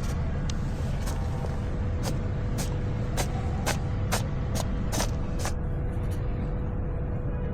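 A cat sneezing over and over: about a dozen short, sharp sneezes in quick succession, stopping about six seconds in, over a steady low rumble.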